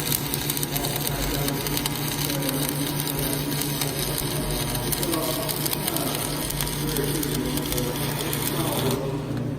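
Stick (arc) welding: the electrode's arc crackles and sizzles steadily over a steady low hum, and the crackle stops about nine seconds in as the arc is broken.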